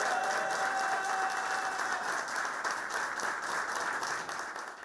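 Crowd applauding and cheering in celebration, as a dense wash of clapping and voices that thins out near the end.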